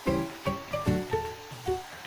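Background music: a melody of short notes that start sharply and fade quickly, several a second.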